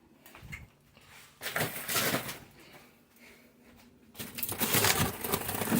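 Food packages and containers rustling, crinkling and clattering as they are handled and shifted in a crammed fridge, in two irregular spells, the longer one starting about four seconds in.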